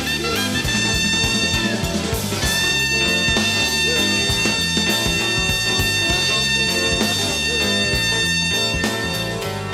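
Live soul band playing an instrumental break: bass and drums under horns, one horn holding a long high note from about two seconds in. The sound is an FM broadcast taped off the air onto cassette.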